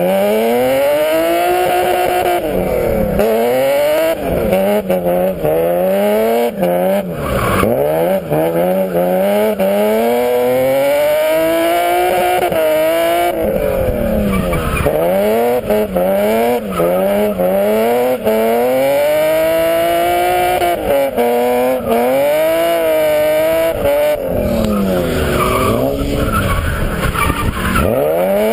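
BMW E30's stock S50B30 3.0-litre straight-six revving hard through drifts, its pitch climbing and dropping again and again as the throttle is worked, with tyres skidding and squealing.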